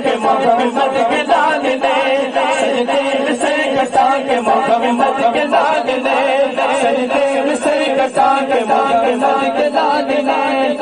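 Men's voices chanting a naat refrain, continuous and steady, with a wavering sung melody.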